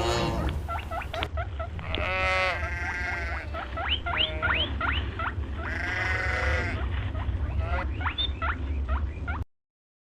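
Farm animal calls: two longer pitched calls with many short, quick rising chirps between them, over a low steady hum. The sound cuts off suddenly near the end.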